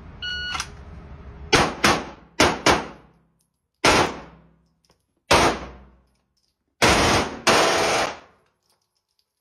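A short electronic start beep, then a full-auto Glock pistol with a ported barrel firing in six bursts. The first two bursts are quick pairs and the next two are short; the last two run about half a second each.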